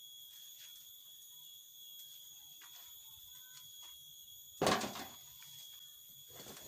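A heavy stone set down into a metal wheelbarrow: one loud clunk about two-thirds of the way through, dying away within half a second, after a few faint knocks of stones being handled. A steady high-pitched whine runs underneath.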